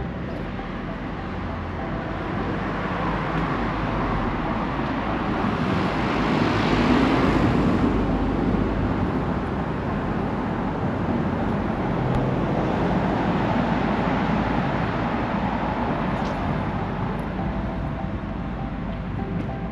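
A motor vehicle passing on the road: tyre and engine noise that builds to a peak about seven seconds in, then fades, over a steady traffic background.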